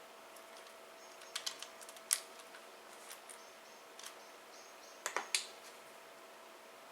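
A few sharp clicks and taps, loudest in two clusters about a second and a half in and about five seconds in, over faint short high chirps.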